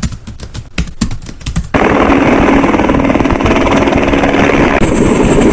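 Rapid, irregular shots like machine-gun fire, then, about a second and a half in, a sudden loud, steady engine-like roar.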